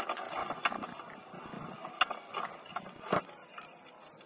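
Irregular thuds and sharp knocks from play on a rugby field, such as footfalls on turf and contact, with the two loudest knocks about two and three seconds in.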